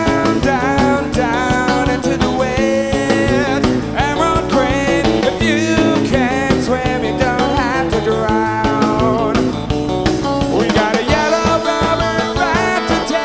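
Live recording of an indie rock band playing: electric guitar, bass and drum kit, with a wavering lead melody over a steady beat.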